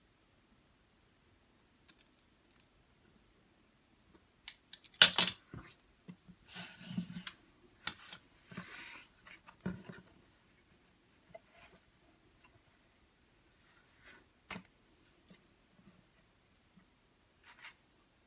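Rolled dough being cut and handled on a stone worktop: almost nothing for about four seconds, then a sharp click, a few seconds of scraping and rustling with more clicks, and scattered light taps after that.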